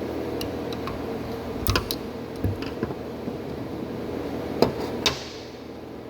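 A few light clicks and knocks of hand tools and parts being handled at the engine's cylinder head during MultiAir actuator work, the two sharpest near the end, over a steady low hum.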